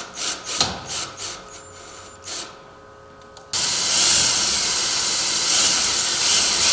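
A few knocks as a door-closer bracket is handled against the jamb, then a power drill runs steadily for about three seconds, driving a screw, and stops abruptly.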